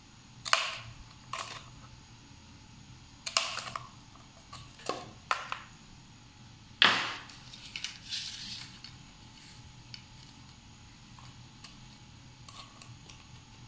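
Small handheld hole punch snapping through the side of a paper cup, several sharp clicks with the loudest about seven seconds in, along with light knocks and rustles of paper cups being handled.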